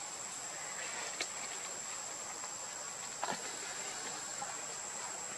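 Steady high-pitched insect drone at one unchanging pitch over a soft outdoor hiss, with two brief faint clicks, about a second in and about three seconds in.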